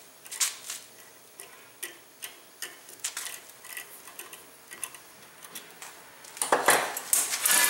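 Hand-turned 8-32 thread tap worked in and backed out of a freshly tapped hole in the steel trigger of a 330 Conibear trap: irregular light metallic clicks and ticks. Near the end, a louder burst of handling noise as the tap comes free.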